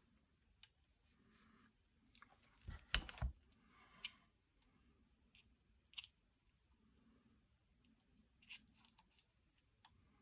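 Faint scattered clicks and knocks of a clamp mount being handled and fitted onto an airsoft rifle, with a louder cluster of thuds about three seconds in.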